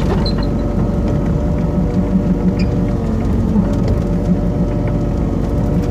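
Hitachi Zaxis 50 five-ton excavator's diesel engine running steadily under load while the machine pushes snow with its blade and struggles to turn.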